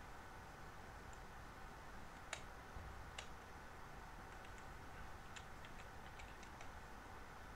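Faint clicking of a computer keyboard during code editing: two sharper clicks about two and three seconds in, then a quick run of lighter key taps in the second half.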